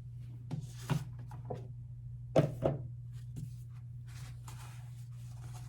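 A K-pop album's cardboard packaging and paper inserts being handled: several sharp taps and knocks, the loudest about two and a half seconds in, then soft scattered paper rustles.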